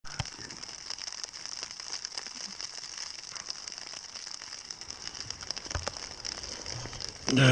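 Wet snow or freezing rain (the camper can't tell which) pattering steadily on the tent and tarp fabric, a dense crackle of small ticks that sounds like rain. Near the end a man's voice cuts in with a falling tone.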